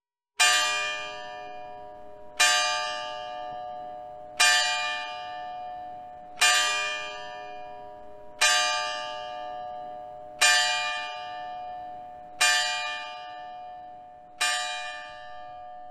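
Tower clock bell striking the hour: eight single strokes about two seconds apart, each ringing and fading before the next, counting eight o'clock.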